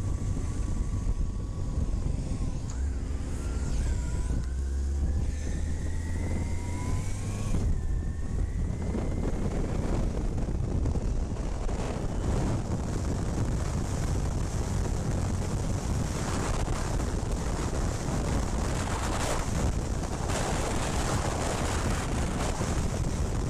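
Motorcycle engine accelerating on the road, its note climbing over the first several seconds and dipping briefly about eight seconds in. After that it settles into a steady rush of wind and road noise on the bike-mounted microphone.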